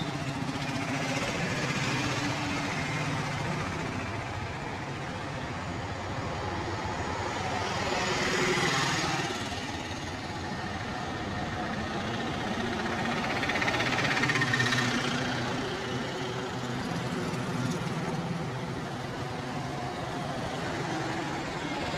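Street traffic: a steady hum of running engines and passing vehicles, swelling about eight seconds in and again about fourteen seconds in.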